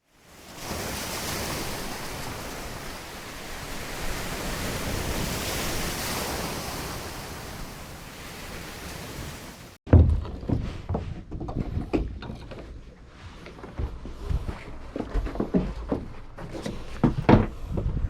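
A steady rushing noise, swelling and fading, that cuts off suddenly after about ten seconds. Then comes a run of irregular knocks and low thumps.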